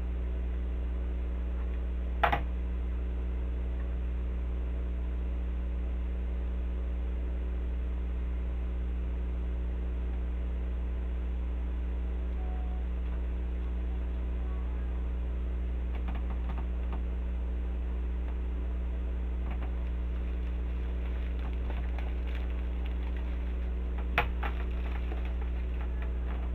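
Steady low electrical hum, with a sharp click about two seconds in and another near the end, and a few faint taps in between from craft materials being handled.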